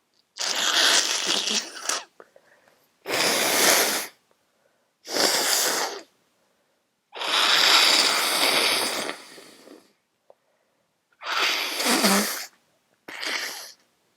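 A person with a congested head cold sneezing repeatedly: six loud, noisy bursts with short gaps between them, the fourth the longest.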